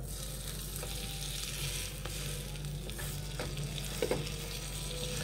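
Bread slices toasting in butter in a nonstick frying pan, sizzling steadily, with a few light knocks.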